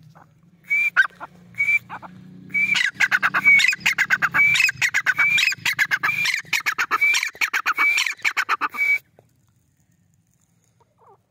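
Grey francolin calling: a few single high notes, then a fast run of loud, repeated ringing notes lasting about six seconds that stops abruptly about nine seconds in.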